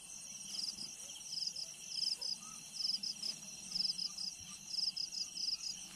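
Crickets chirping in a steady rhythm, short trilled chirps about two a second.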